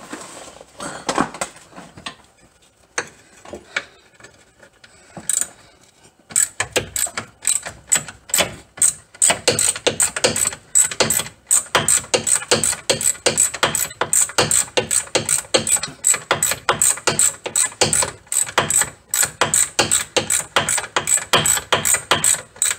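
Ratchet wrench clicking in quick repeated strokes as a 13 mm bolt is backed out of a fiberglass spring guard. There are only a few scattered clicks at first, and steady fast ratcheting starts about six seconds in.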